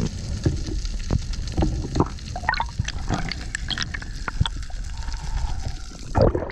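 Underwater sound of a diver swimming up to the surface: scattered clicks and bubbling gurgles, then a loud splash as the camera breaks the surface near the end.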